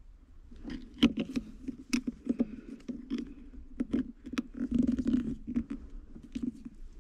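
Small flat-blade screwdriver clicking and scraping against a crimped metal pinch clamp on a gear shift lever, in irregular bursts starting about a second in, as the clamp is pried open.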